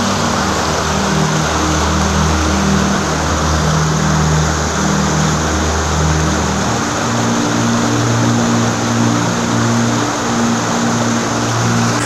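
Rushing water of a shallow river's rocky rapids, a steady hiss, with background music of slow, sustained low notes over it.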